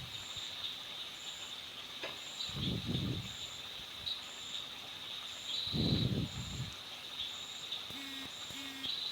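Insects chirping steadily in the background, one giving a short pulse a little more than once a second. Three soft low swishes come about three seconds apart.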